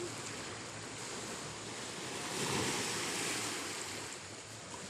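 Sea waves breaking on the beach at high tide: a steady wash, with one wave swelling about two seconds in and fading away.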